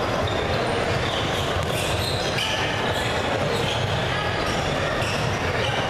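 Basketball game sounds: a ball bouncing on the hardwood court and sneakers squeaking in several short, high squeaks as players move.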